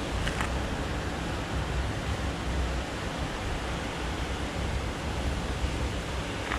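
Steady rush of water pouring over a small dam beneath the bridge, with wind buffeting the microphone.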